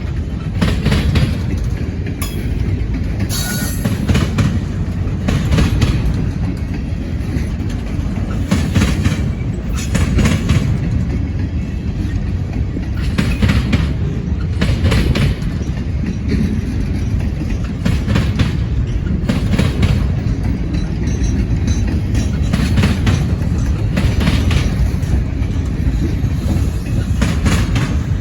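Freight train cars rolling past: a steady low rumble of wheels on rail, broken by irregular clacks as the wheels cross rail joints.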